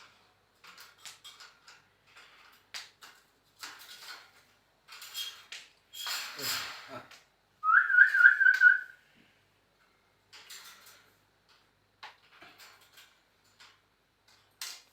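A short warbling whistle of about a second that rises, then trills rapidly in pitch. Before it come scattered light clicks and scratches and a louder rustle, with a few faint clicks afterwards.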